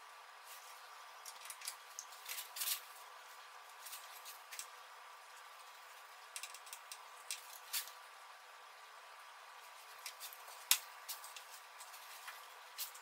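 Faint, irregular clicks and light taps of hand tools and metal parts being handled during disassembly of the 1.8 TFSI engine's upper timing cover, over a faint steady hum.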